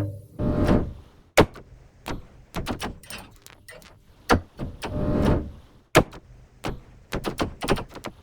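Harsh noise music: a dense wall of noise cuts off abruptly, leaving scattered, irregular sharp cracks and clicks and a few falling swept noise smears.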